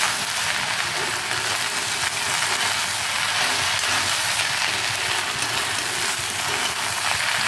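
Chopped okra sizzling steadily in hot oil in a kadai, with a spatula stirring and scraping it around the pan.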